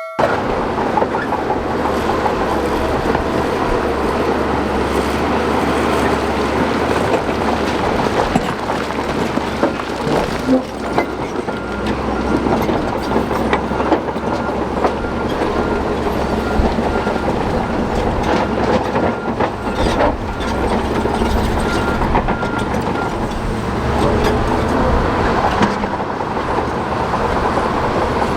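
Shantui DH17 crawler bulldozer working: its diesel engine running steadily under load while the steel tracks clank and rattle over rock. A repeated high squeak runs through the middle stretch, with sharp metal clanks here and there.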